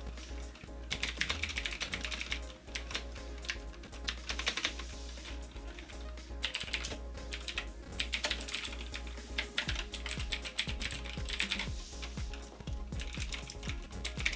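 Fast typing on two clicky mechanical keyboards, one with Cherry MX Blue switches and one with Razer Green switches, tried in turn. The clicks come in several bursts of a second or so with short pauses between them. Background music plays underneath.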